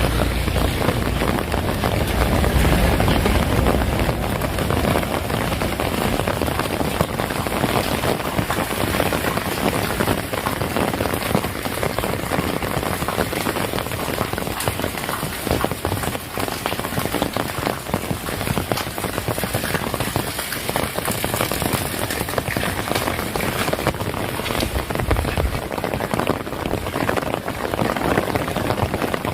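Heavy rain falling steadily, a dense patter of drops hitting surfaces, with a low rumble swelling in the first few seconds and again briefly near the end.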